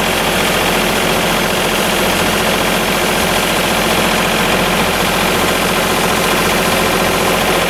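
John Deere garden tractor running steadily while its front-mounted 60-inch heavy-duty rotary broom spins, sweeping snow and throwing it aside in an even hiss.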